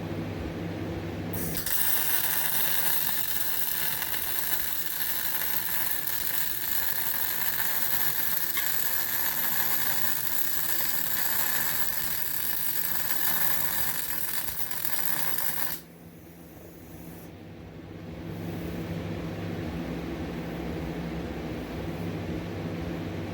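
Vulcan MigMax 215 MIG welder laying a bead: the arc crackles steadily for about fourteen seconds, starting a second and a half in and cutting off suddenly. A steady low hum runs before and after the weld.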